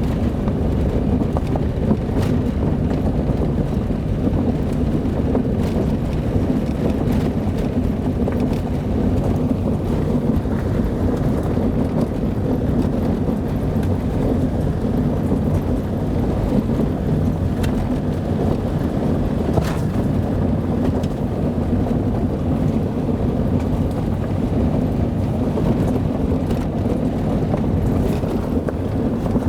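Car driving along: a steady low engine and tyre drone, with a few sharp knocks here and there.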